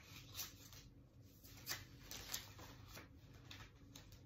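Faint handling noises: a few brief rustles and light knocks as things are moved about by hand, over a quiet steady room hum.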